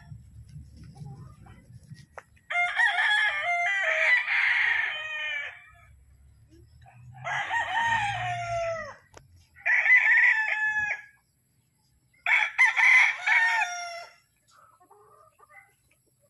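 Gamefowl roosters crowing one after another, four or five crows, each one to three seconds long, with short gaps between them.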